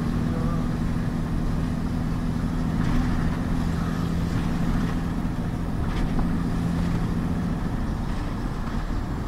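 Cab interior of a Mercedes-Benz mixer truck on the move: steady diesel engine drone and road noise, with a low hum that fades out about a second before the end.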